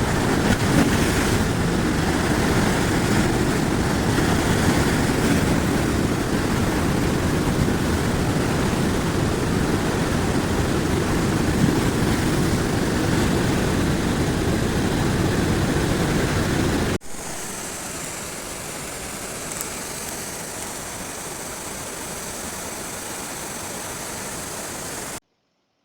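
River in flood rushing steadily, a dense unbroken wash of water noise. About two-thirds through, it cuts abruptly to a quieter, hissier rush, which stops suddenly near the end.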